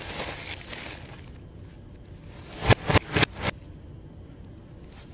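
Clear plastic bag being handled and crinkling: a soft rustle at first, then about four quick, sharp crinkles a little past the middle.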